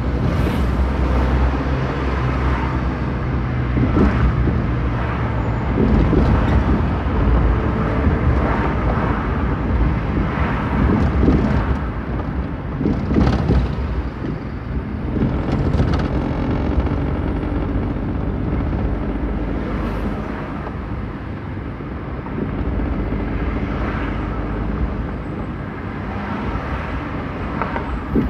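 Car engine and road noise heard from inside a moving car in city traffic: a steady rumble with a few brief louder moments.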